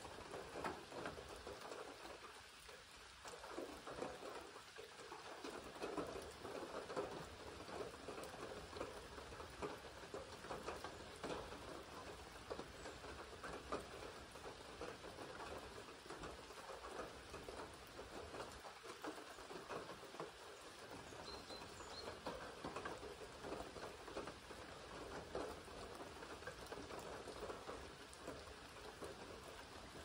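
Steady rain pattering, a dense, even hiss of many small drops ticking close by.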